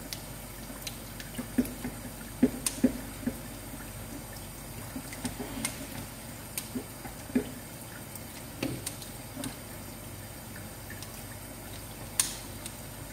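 Tap water running steadily over fish being cleaned in a steel sink, with irregular sharp snips and clicks of kitchen scissors cutting into the fish.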